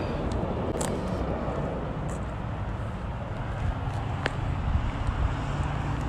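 Steady low engine rumble, with wind on the microphone and a few light clicks.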